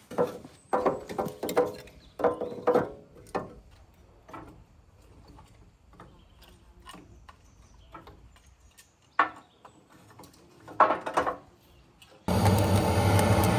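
Irregular knocks and clatter, several in quick succession, then sparser with two sharper ones later on. Near the end a loud steady rumble starts abruptly.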